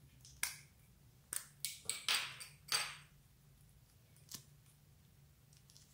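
Caps being pulled off pencil-shaped lip balm sticks: a quick run of sharp clicks and a short scraping slide in the first three seconds, then one more click later on.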